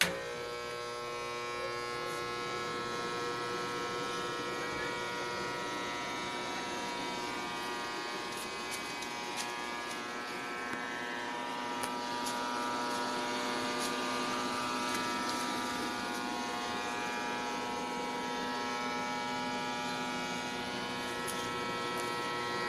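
Creston BXC-250CU copper-wound AC transformer arc welder switched on, starting abruptly with a brief surge, then idling with a steady electrical hum rich in overtones.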